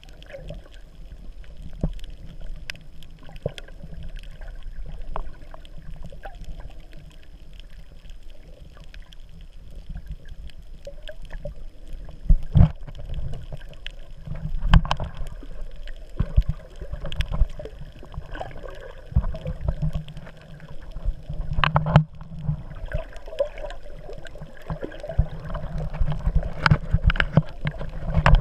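Underwater ambience picked up through a camera's waterproof housing: a muffled, uneven low rumble of moving water, with scattered sharp clicks and knocks throughout.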